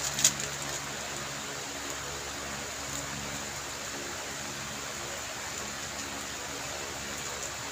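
Steady hiss of room noise, with a few sharp clicks right at the start as a 3x3 speedcube, an X-Man Tornado V3M, is turned in the hands.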